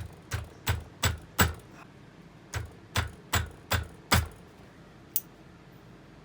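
A hammer tapping in two quick runs, four sharp knocks then five, about three a second, with one lighter click about a second later.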